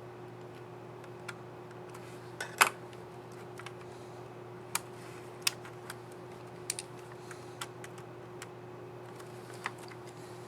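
Scattered small plastic clicks and taps from handling and fitting a laptop keycap and its scissor mechanism, with one sharp snap about two and a half seconds in standing out above the rest. A steady low hum runs underneath.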